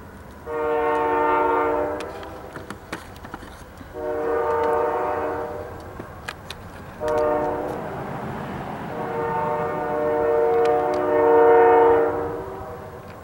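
Union Pacific locomotive's multi-tone air horn sounding the grade-crossing signal: two long blasts, a short one, then a final long blast that is the loudest, warning road traffic at the crossing.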